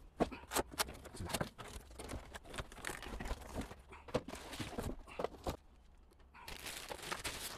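Cardboard box being handled and opened: a run of scrapes and knocks from the cardboard and its flaps. After a short pause, a plastic bag rustles as the computer tower is lifted out of it, about a second long, near the end.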